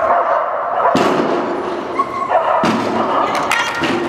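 Welsh Springer Spaniel barking repeatedly while running an agility course, with two sudden thuds, about a second in and again midway.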